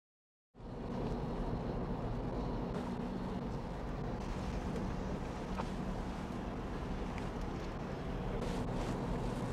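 Steady road noise and engine hum of cars on a highway, starting out of silence about half a second in.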